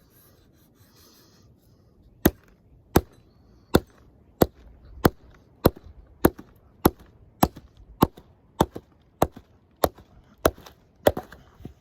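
A steady series of about fifteen sharp strikes, evenly spaced a little over half a second apart, beginning about two seconds in: something being struck repeatedly with a hand tool.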